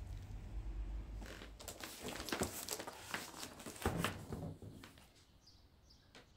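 Large cardboard box of a flat-packed shelving unit being handled: scraping and rustling cardboard with a few knocks, loudest in the middle and fading away about five seconds in. A low rumble is heard at the start.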